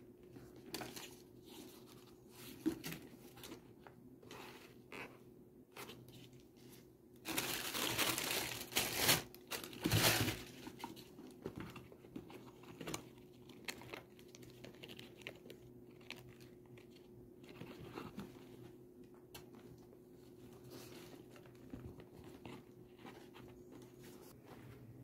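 Tissue paper rustling and crinkling as sneakers are handled in their shoebox, with scattered light handling noises and one louder stretch of crinkling about seven to ten seconds in. A faint steady hum sits underneath.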